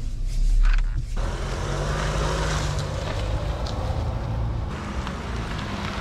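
Chevrolet Equinox SUV running and being driven slowly, heard from inside the cabin. About a second in, a steady, even rushing noise takes over.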